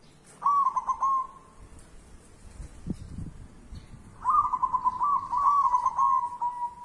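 A bird calling in two phrases of quick repeated notes on nearly one pitch, the second phrase longer and ending in a drawn-out note. A low thump comes between them, about three seconds in.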